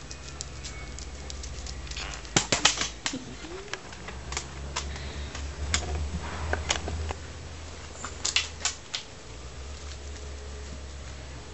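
Irregular sharp clicks and taps, a quick cluster of them a couple of seconds in and another near the end, over a steady low rumble.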